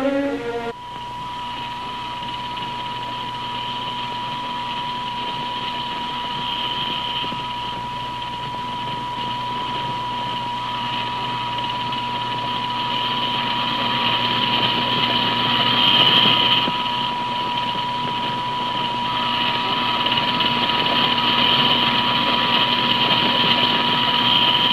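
A motorised floor-cleaning machine running with a steady mechanical hum and a constant high whine, swelling and easing a little in loudness. Orchestral music ends about a second in.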